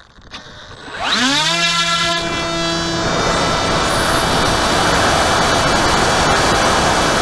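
Skywalker X6 flying wing's electric motor spinning up quickly to full throttle at launch, its whine rising and then holding steady. Loud rushing wind and propeller noise soon drowns it out as the plane flies away low and climbs.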